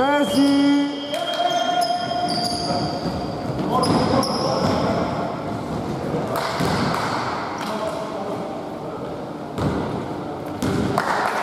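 Basketball game sounds in a gym: the ball bouncing on the hardwood floor, players' shouts and short high sneaker squeaks, all echoing in the large hall.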